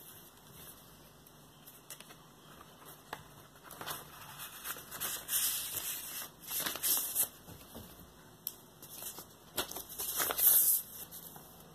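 Paper inner sleeve and cardboard album jacket rustling and sliding as a vinyl LP in its sleeve is pulled out of the jacket and handled, in uneven bursts that are loudest about five seconds in and again about ten seconds in.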